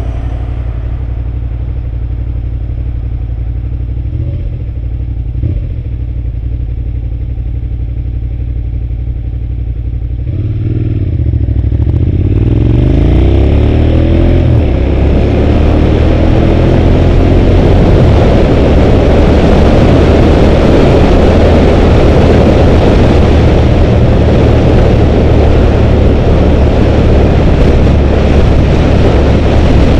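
A 2005 Suzuki SV650's V-twin engine runs steadily at low revs, then about ten seconds in accelerates hard, its pitch rising several times as it climbs through the gears. From then on loud wind rush at speed covers the engine.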